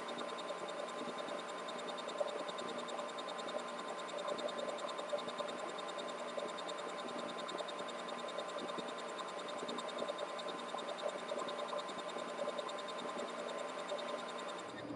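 Steady hiss and faint hum of room tone, with a fast, faint, even ticking, and a few soft rustles of a duvet as the sleeper moves.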